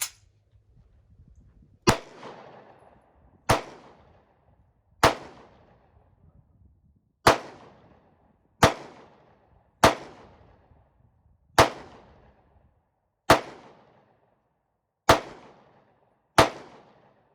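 SCCY 9mm pistol fired ten times in slow, deliberate succession, one shot every one and a half to two seconds, each shot sharp with a short echo after it.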